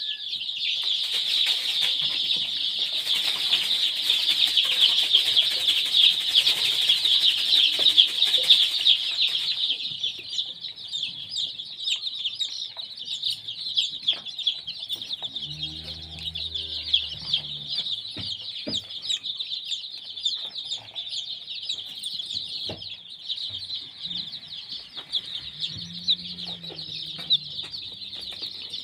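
A brood of chicks peeping constantly in a dense, high chorus, louder for the first ten seconds or so, with a couple of lower clucks from a chicken.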